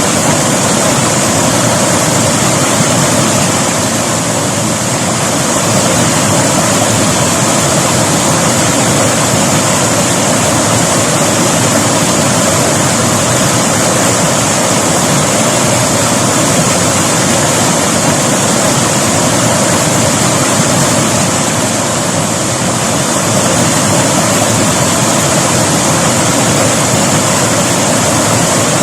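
A river's water rushing steadily, a loud, continuous roar without breaks, swelling slightly now and then.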